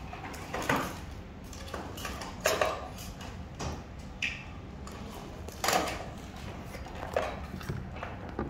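Background noise of a large indoor hall: a steady low hum with about five short, sharp sounds scattered through it.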